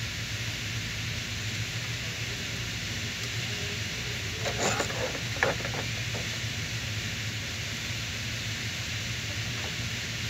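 Steady whirring hiss with a low hum from the Silverado's radiator cooling fan, which keeps running with the key off. The mechanic traces this fault to the thermostat and coolant temperature sensor. A few metallic clinks of a socket wrench on the thermostat housing come about halfway through.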